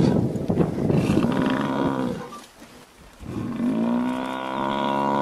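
African buffalo bellowing in distress while held by lions: two long, drawn-out moaning calls, the second beginning about three seconds in.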